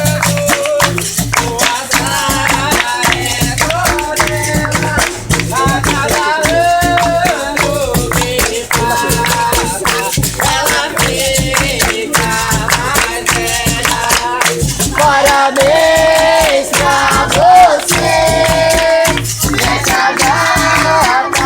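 Capoeira roda music: berimbau with its caxixi rattle, a group singing call-and-response, and steady hand clapping.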